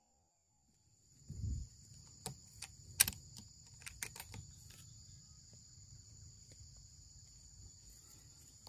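Steady high insect chirring, starting about a second in, with a dull thump just after and a few sharp clicks, the loudest about three seconds in.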